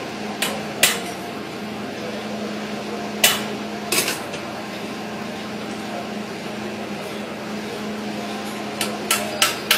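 Sharp metallic clicks of a 30-bore (7.62×25 mm) pistol's slide and action being worked by hand: two near the start, two more around the middle, and a quick run of four near the end, over a steady low hum.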